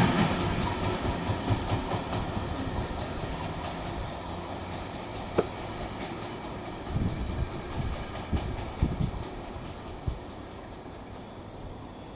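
Freight wagons rolling away over the rails, the clickety-clack of their wheels steadily fading as the train recedes. A faint high-pitched squeal comes in near the end.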